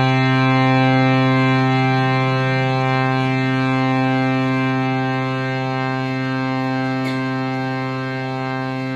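Reed harmonium holding one low note on two reed sets, played to show how long its sound sustains. The note stays steady and fades slowly, with a slight beating between the reeds.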